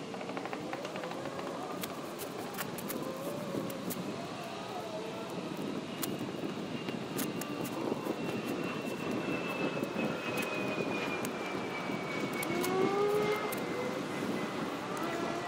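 An airplane passing overhead: a steady rushing rumble with a thin high whine that slowly falls in pitch over several seconds. Scattered sharp clicks sound through it.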